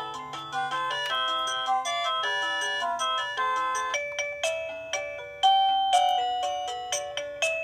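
INNLIFE wireless doorbell receiver playing one of its 36 electronic chime tunes. A quick run of notes gives way about four seconds in to slower notes that each start sharply and ring out.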